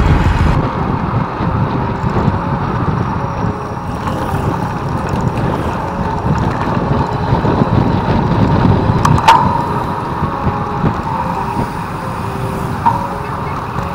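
Wind buffeting the microphone of a camera riding on a moving bicycle, a steady low rumble mixed with road noise. There is one sharp click about nine seconds in and a smaller one near the end.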